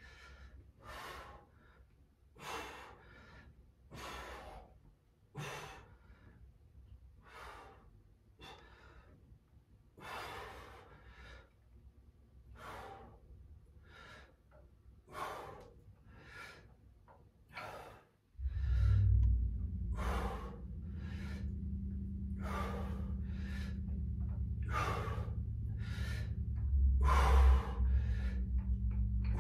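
A person breathing hard in a steady rhythm, about one forceful breath every second and a half, while exercising with dumbbells through side-to-side torso rotations. About two-thirds of the way in, a steady low hum starts suddenly and runs under the breathing.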